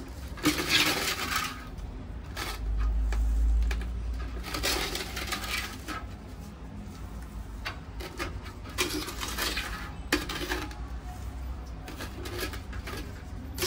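Hands handling a potted plant and its potting mix, with scattered light clinks and knocks and short rustles of the peat and perlite substrate.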